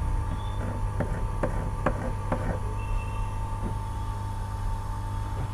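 Steady low electrical hum with a faint steady high tone, and four light clicks in quick succession between about one and two and a half seconds in.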